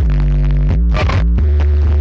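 Loud electronic music with a heavy, sustained bass line and steady held chords, with a couple of sharp percussive hits about a second in.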